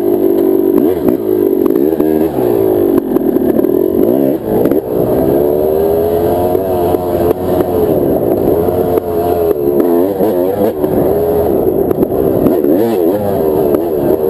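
Yamaha YZ250 single-cylinder two-stroke dirt bike engine under way, its pitch rising and falling again and again as the throttle is opened and closed.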